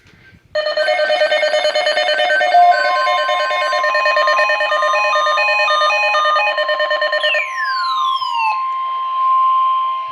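Several NOAA Weather Radio receivers alarming at once for a tornado watch. About half a second in, a mix of steady and beeping alert tones starts, over the long steady Weather Radio warning tone. Most of the beeping stops about seven seconds in, with a few falling sweeps, and the steady warning tone carries on.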